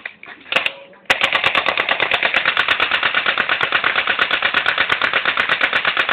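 A fully automatic, battery-powered plastic-BB gun firing one continuous burst of about ten shots a second, starting about a second in.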